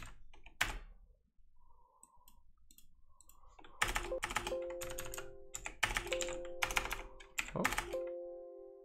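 Typing on a computer keyboard: a single key click near the start, then a quick run of keystrokes from about four seconds in. From about halfway, a steady chord-like tone sounds under the typing.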